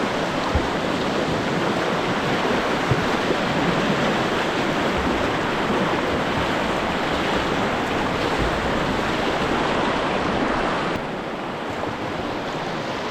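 Rushing white water of a small standing wave on a shallow river rapid: a steady wash that eases off a little about eleven seconds in.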